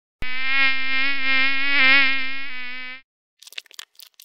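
Mosquito in flight: a steady, high buzzing whine that wavers slightly, drops a little in pitch about two and a half seconds in and stops about a second later.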